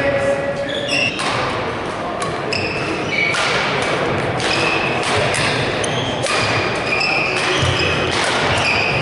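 A badminton rally: rackets strike the shuttlecock with sharp hits about once a second, with shoes squeaking on the wooden court in between. The sound echoes in a large sports hall.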